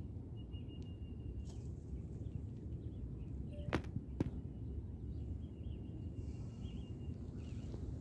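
Outdoor ambience with a steady low rumble like wind on the microphone, a faint thin high tone that comes and goes, and two sharp clicks about half a second apart near the middle.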